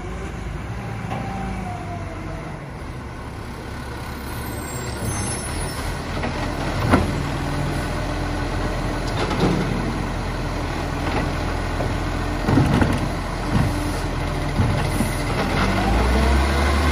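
Side-loader garbage truck's diesel engine running while its automated arm lifts and empties a wheelie bin, with several sharp clunks of the bin and rubbish in the middle. The engine gets louder near the end as the truck pulls forward.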